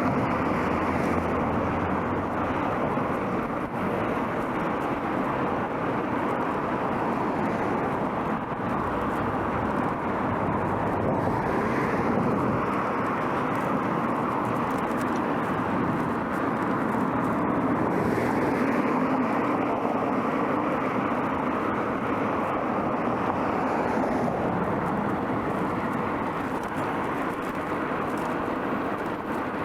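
Steady road noise from riding a bicycle on pavement: tyres rolling and air rushing past, with passing traffic swelling and fading now and then.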